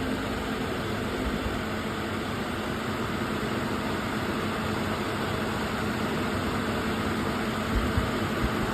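Infiniti JX35's 3.5-litre V6 idling steadily under the hood while its alternator output is being tested. A few soft low knocks come near the end.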